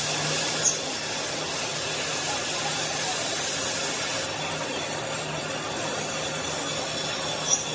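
Steady rushing noise of hot metal being cut away inside a steel excavator bucket, throwing a shower of sparks, over a faint low hum. A short sharp tick comes about a second in and another near the end.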